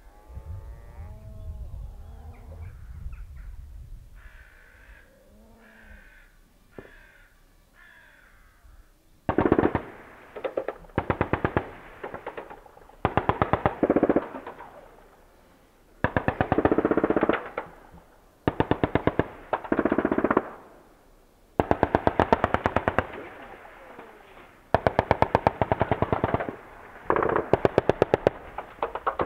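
British Army .50-calibre Browning heavy machine gun firing about eight bursts of rapid shots, each one to two seconds long, starting about nine seconds in. Before the firing, birds call.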